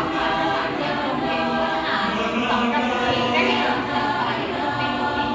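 A choir singing in vocal harmony, several voices holding and moving between sustained notes at a steady level.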